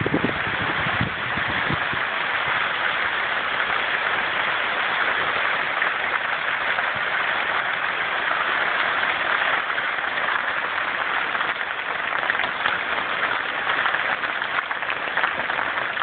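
Small hailstones pelting a trampoline mat and the ground in a heavy hail shower: a dense, steady patter of countless tiny ticks.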